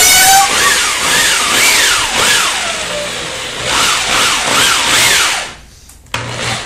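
Power drill spinning a solid fiberglass rod as it bores out the spar hole in an expanded-foam wing, the motor whine rising and falling in pitch about twice a second as the load changes, over a rubbing hiss. Near the end the drill stops for about half a second, then starts again.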